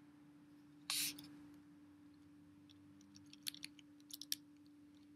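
Quiet room with a steady low electrical hum. There is a short breath about a second in, then a handful of faint, sharp computer mouse clicks between about three and four and a half seconds in as the web page is scrolled.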